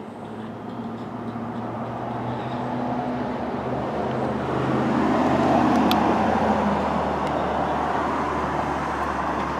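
A road vehicle passing by. Its engine and tyre noise swell to a peak about halfway through, then slowly fade.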